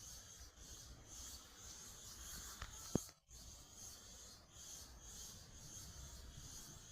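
Cicadas buzzing in a faint high-pitched chorus that swells and fades about once a second, with a single short click about three seconds in.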